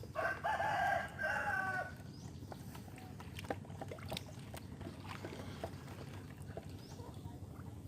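A rooster crowing once, a two-part call lasting under two seconds, followed by faint scattered clicks.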